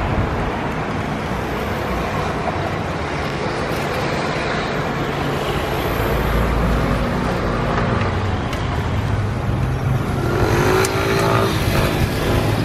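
Steady urban traffic noise, with a car passing by about halfway through. A short pitched, wavering sound rises over the traffic near the end.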